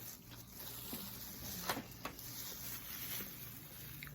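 A few faint clicks and light knocks of objects being handled on a table, over a low steady hum.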